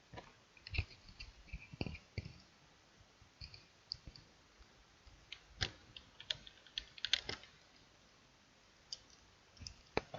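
Irregular clicks of a computer mouse and keyboard, single clicks and short clusters with pauses of a second or more between them.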